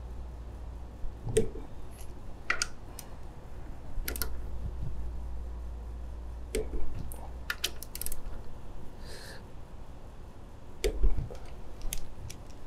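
Quarter-inch torque wrench and socket clicking while connecting-rod cap bolts are tightened on the crankshaft, in scattered short, sharp metallic clicks.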